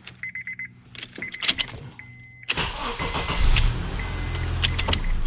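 Clicks and short electronic chimes as the key is turned, then about two and a half seconds in the Honda Accord's starter cranks and the engine fires up and settles into a steady run. It starts on the first attempt with the new ignition switch in place, where before it only made an electrical clicking and would not start.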